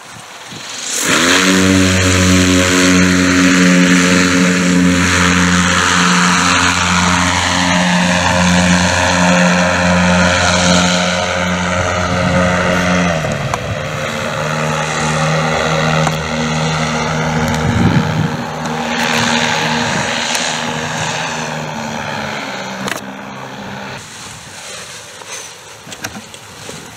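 Electric twin-motor paramotor (Dragonfly DF3 prototype) spooling up about a second in to a loud, steady propeller drone with a high motor whine that slowly falls in pitch. About halfway the drone drops to a lower pitch, and it grows quieter in the last few seconds.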